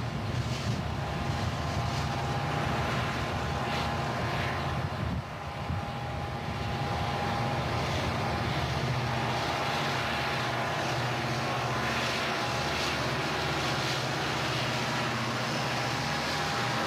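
Several Southern Pacific diesel locomotives passing close, their engines running with a steady deep drone and a thin high whine over it. Under it is the rolling of the tank-car train on the rails.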